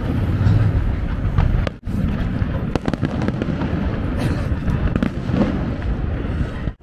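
Fireworks display going off: a continuous rumble of bursts with many sharp bangs and crackles in quick succession. The sound cuts out briefly about two seconds in.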